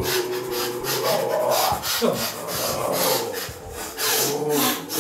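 Amplified mouth noises played through a small VOX amp: harsh rasping breath sounds in quick repeated strokes, mixed with vocal tones that slide up and down in pitch.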